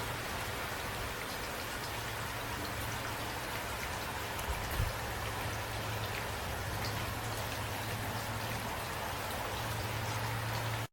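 Steady rain with scattered drop ticks over a constant low rumble, and two soft low thumps about halfway through.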